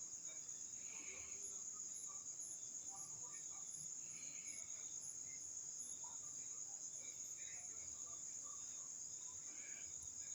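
Insects trilling steadily: one continuous high-pitched trill with a fast pulse, and faint scattered chirps over it.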